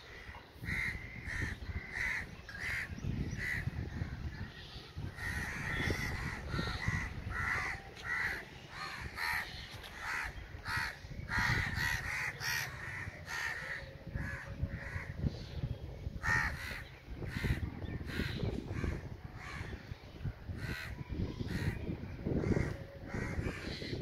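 Crows cawing, many short harsh calls in series, over a low rumble.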